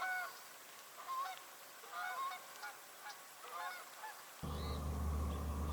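Geese honking, a run of short repeated calls about every half second. About four seconds in they give way abruptly to a steady low hum and rumble.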